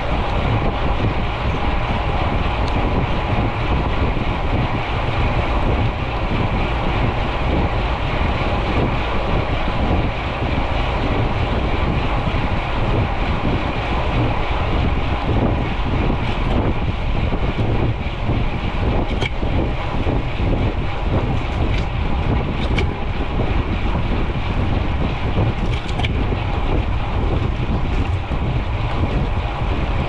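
Wind buffeting the microphone of a camera riding along on a moving bicycle, giving a steady, loud rumbling rush. A few light clicks come through about two-thirds of the way in.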